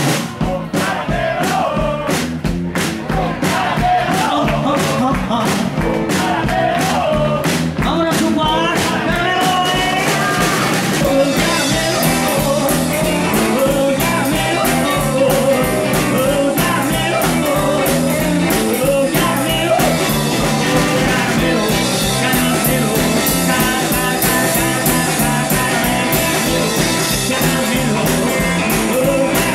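Live rockabilly band with singing, electric guitar and drums. About the first ten seconds have sparser drum hits under the vocal, then the full band fills out with a steady cymbal wash.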